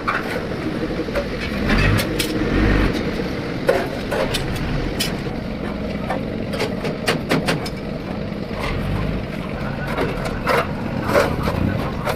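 Workshop noise: scattered knocks and taps over a steady low rumble, which swells briefly about two seconds in.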